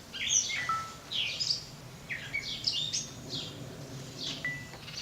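Songbirds chirping and singing: a busy run of quick, high chirps with a couple of short, steady whistled notes.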